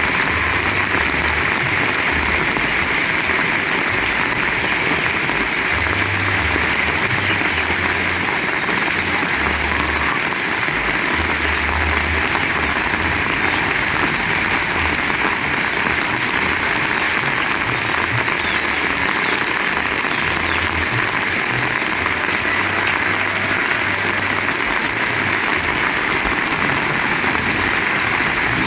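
Heavy rain pouring down in a steady, dense hiss, with irregular low rumbles of strong wind buffeting the microphone.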